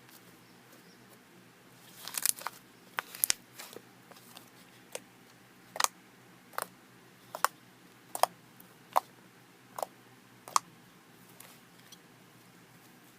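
Matte slime being squeezed and folded by hand, giving off sharp little clicks and pops as air pockets burst, settling into about one pop every second. The pops start about two seconds in and stop near the end.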